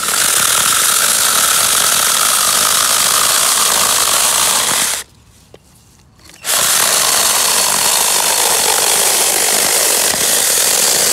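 DINSHARE cordless mini chainsaw running as its chain cuts through a thick tree stem, the motor's pitch sagging slightly under load. The saw stops about five seconds in and starts cutting again about a second and a half later.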